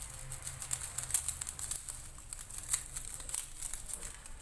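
Foil seasoning sachet crinkling as it is shaken and squeezed over the pot, an irregular run of light crackles.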